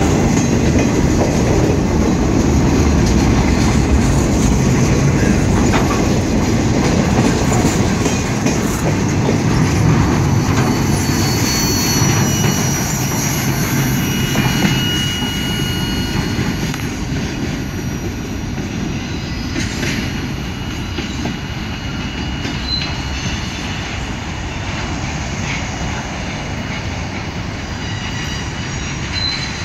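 Double-stack intermodal freight train's container well cars rolling past on the rails, wheels rumbling and clacking, with a few brief high-pitched wheel squeals midway. The sound fades as the tail end of the train draws away.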